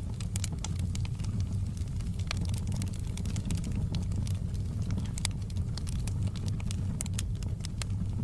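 Wood fire burning in a fireplace: a steady low rumble of flames with frequent sharp, irregular crackles and pops from the burning logs.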